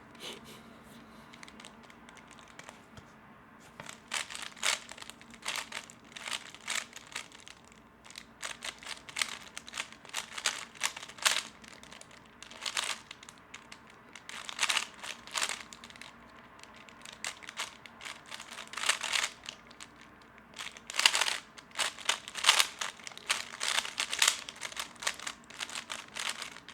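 Plastic 3x3 speedcube being turned fast: flurries of clicking, clattering turns broken by short pauses, starting about four seconds in. It is a timed speedsolve whose F2L and OLL stages go badly, with the hesitations that come with them.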